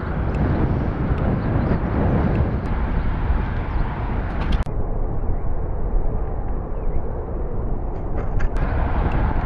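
Wind rushing over the microphone of a handlebar-mounted camera as a mountain bike rolls across grass, a steady low rumble. The bike rattles, with a few sharp clicks about halfway through and again near the end.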